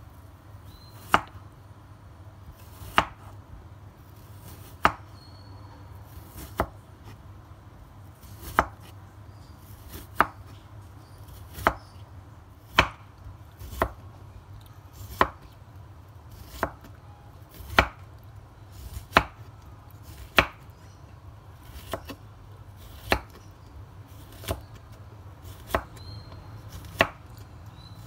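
Kitchen knife slicing a peeled cucumber on a wooden cutting board, each stroke ending in a sharp knock of the blade on the wood. The knocks are slow and even, about one every second and a half.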